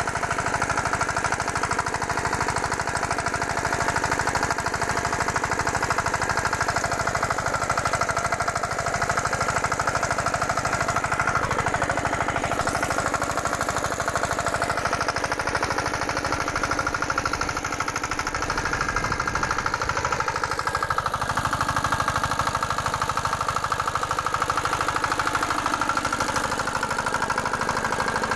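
Engine of a small walk-behind rotavator-cultivator machine running steadily, with a fast, even chugging.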